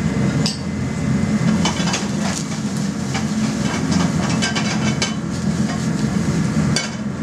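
Metal spoon stirring and scraping sliced mushrooms in a frying pan on a gas burner, with repeated sharp clinks of spoon on pan over sizzling. A steady low hum runs underneath.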